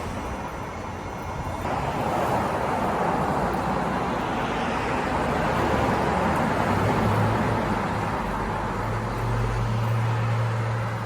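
Road traffic: a steady rush of vehicle and tyre noise that swells about two seconds in, with a low engine hum coming in about six seconds in and growing louder near the end.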